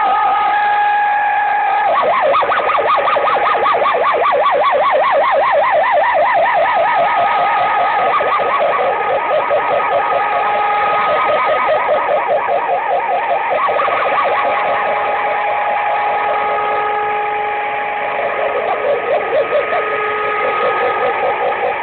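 Radio receiver on 49.750 MHz putting out a tangle of whistle tones, some held steady and others warbling rapidly up and down. This is the 'UFO sound' of distant signals arriving by sporadic-E propagation.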